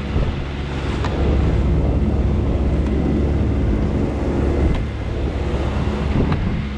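A sailboat's motor running steadily under way, a constant low hum, with water rushing along the hull and wind on the microphone.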